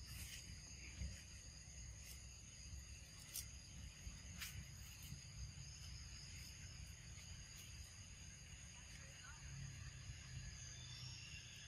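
Faint, steady, high-pitched insect chorus, with a low rumble underneath and a few soft clicks.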